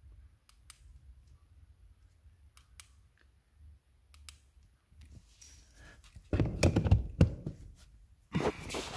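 Handling noise: a few faint clicks, then two bouts of rustling and knocking, about six and a half and eight and a half seconds in.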